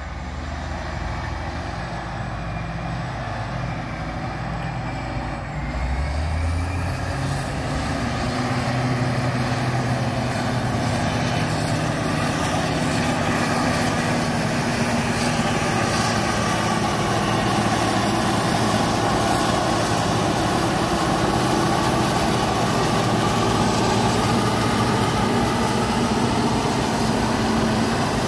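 Diesel engines of a Caterpillar 637C twin-engine scraper running, getting louder about six to eight seconds in as it comes close. A thin high whine rises in pitch at that point and then holds steady.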